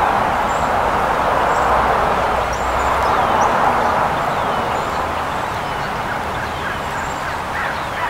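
Small songbirds calling, short falling chirps repeating every second or so, over a loud steady rushing background noise.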